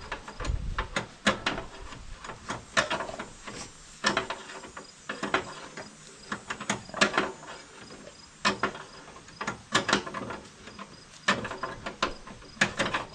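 A wrench tightening a nut on a lawn mower, giving irregular metal clicks and clanks.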